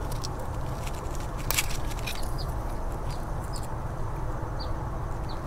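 Faint clicks of insulated spade connectors being worked off a microswitch's terminals, a stronger click about one and a half seconds in, with a few short high bird chirps over steady outdoor background noise.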